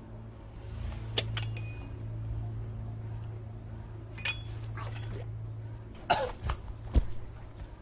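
A few light clinks and knocks over a low steady hum: two about a second in, a cluster around four to five seconds, and louder knocks near six and seven seconds, after which the hum drops away.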